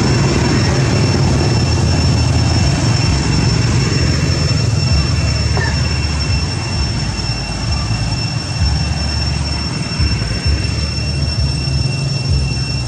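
Outdoor wind buffeting the microphone as an uneven low rumble, over a steady high-pitched whine.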